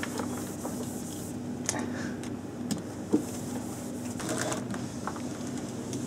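Handling and wiping noises from cleaning a desk microphone and its stand with a cloth: soft rubbing with a few small knocks and clicks, over a steady low hum.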